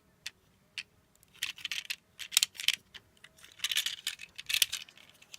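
Plastic Lego bricks clicking and rattling as a Lego model train is handled, in three short clattering bursts.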